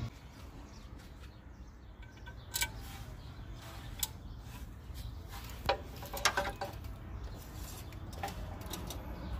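Scattered light metallic clinks and taps of hand tools on engine parts, about half a dozen, some with a brief ring, over a steady low hum.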